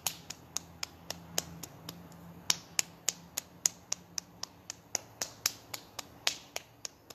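An open hand slapping lightly along a bare arm, quick even pats at about three a second, working down the arm to the hand and back up in a self-massage tapping routine.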